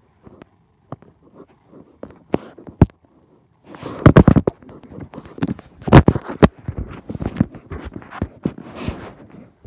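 Handling noise from the recording phone being moved and bumped. A few scattered knocks give way to heavier rubbing and knocking about four seconds in, with the loudest knocks around four and six seconds.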